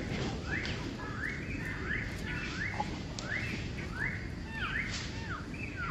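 Baby long-tailed macaque crying in a steady run of short high-pitched calls, about two or three a second, each rising and then held. Near the end the calls turn into falling notes.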